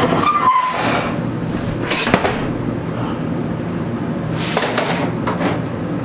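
Metal bar clamps and a glued-up wooden panel being lifted off a steel table: clanking and scraping, with a squeak at the start, a sharp knock about two seconds in and a longer scrape near the end.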